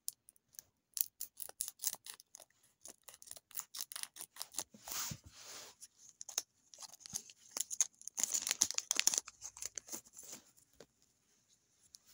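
Scissors snipping through the crimped edge of a foil trading-card booster pack in a run of quick cuts, then the foil wrapper crinkling as it is pulled open, loudest about eight to nine seconds in.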